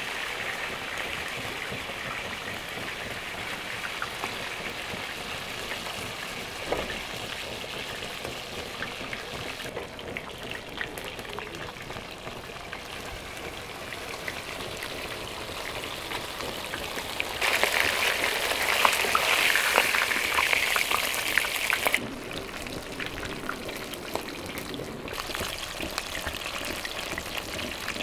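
Fish frying in a pan of hot oil: steady sizzling and crackling, louder for about four seconds roughly two thirds of the way through.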